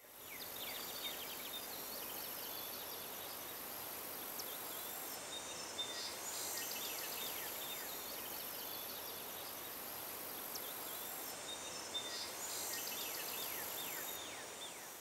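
Outdoor nature ambience: many short, falling bird chirps over a steady, high-pitched insect buzz.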